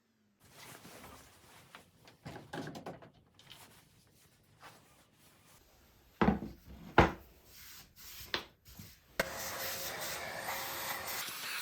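Wooden boards being handled: rubbing and sliding of wood on wood, with a few sharp knocks in the middle, three of them loud. About nine seconds in, a steady machine noise starts suddenly and runs on.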